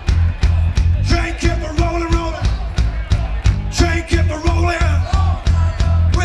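Rockabilly trio playing live, with electric guitar, upright bass and drums, on a fast driving beat of about four hits a second. Long held notes sound twice over the beat.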